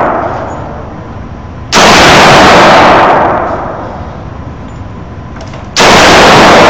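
Two rifle shots from a Smith & Wesson M&P15 AR-15, one about two seconds in and another about four seconds later. Each is a very loud blast that overloads the phone microphone and then booms and dies away slowly off the concrete walls of an indoor range.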